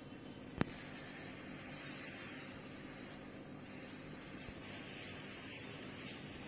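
Batter sizzling with a steady, soft hiss on a hot oiled non-stick griddle as small oat and vegetable pancakes are ladled out, with one sharp click of the steel ladle against the pan about half a second in.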